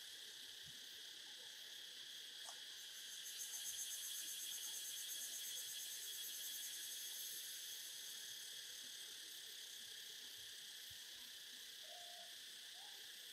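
Steady high-pitched insect chorus in forest undergrowth, with a faster pulsing trill that swells about three seconds in and fades again. Near the end come a couple of short, faint low calls.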